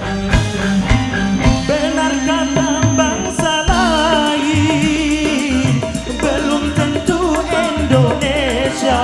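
Live dangdut band music: a male singer over a steady drum beat, with keyboards and electric guitars, ending on a long held note.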